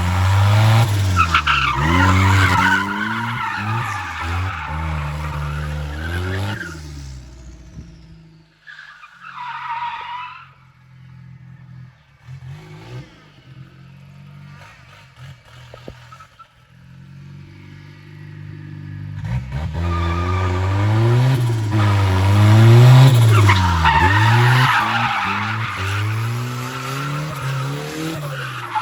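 A BMW E36 drift car's turbocharged GM 2.0 four-cylinder engine revving up and down while its tyres squeal through slides, twice, with a quieter stretch in the middle.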